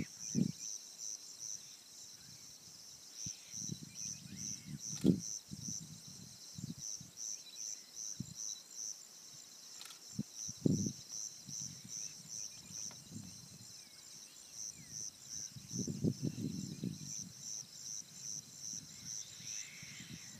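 Insects trilling steadily in grassland, a high pulsing chirr of about two to three pulses a second. Low thumps and rumbles from wind or handling on the microphone come and go, the sharpest about five and eleven seconds in.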